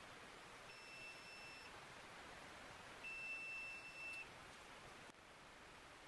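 Digital multimeter's continuity beeper sounding twice, two steady high beeps of about a second each, the second slightly louder, as the test probes touch the connector's pins: each beep signals a closed circuit between the probes.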